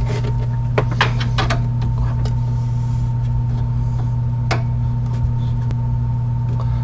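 Steady low hum of a running air-conditioner blower motor, with a few sharp clicks and knocks of hand work on metal fittings, most of them in the first two seconds and one about four and a half seconds in.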